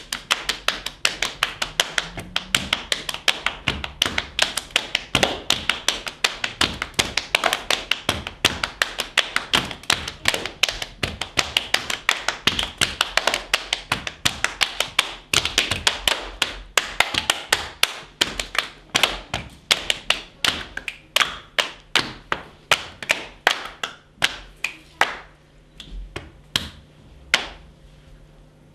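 Body percussion: several performers tapping their chests and bodies with their hands in a fast, dense patter of many taps a second. It thins out to a few scattered taps near the end.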